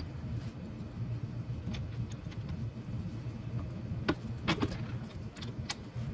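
A few light metallic clinks, bunched between about four and six seconds in, as the front brake and spindle parts of a golf cart are handled. A steady low hum runs underneath.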